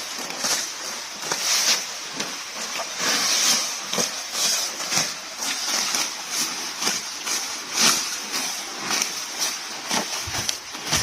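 Water buffalo grazing: grass being torn and chewed, a quick, irregular run of short crunching and tearing sounds.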